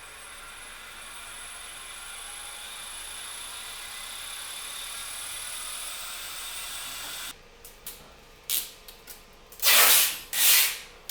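Driveshaft balancing machine spinning a Ford Transit propeller shaft on a calibration run: a steady whirring hiss that slowly grows louder, then stops abruptly about seven seconds in. Several short, loud rubbing noises follow near the end.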